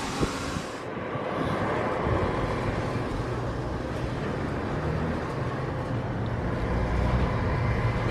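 Machinery running: a steady low drone that grows fuller from about two seconds in.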